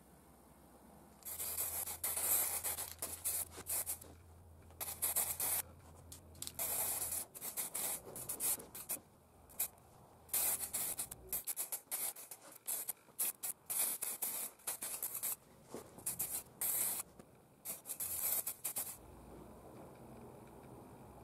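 Spray paint hissing out in many short bursts, each lasting from a fraction of a second to about a second, as a hanging steel part is coated. The bursts begin about a second in and stop shortly before the end.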